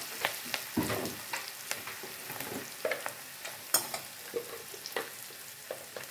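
Sliced onions and turmeric sizzling in hot mustard oil in a metal kadhai, a steady hiss with scattered pops. A perforated metal spoon scrapes and clicks against the pan a few times, once sharply just under four seconds in.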